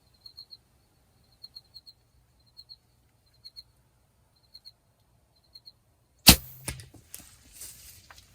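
A bird chirping faintly in short high clusters of two or three notes, about once a second. About six seconds in comes the sharp, loud crack of a hunting bow being shot at a whitetail deer, followed by a few seconds of rustling noise.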